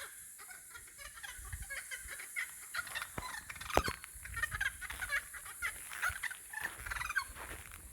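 Birds calling in the bush: many short chirps and clucking calls, over soft footsteps on the track.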